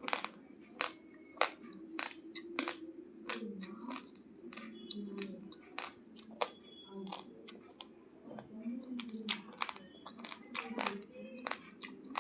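Raw basmati rice grains being crunched between the teeth: sharp, irregular crunches, two or three a second.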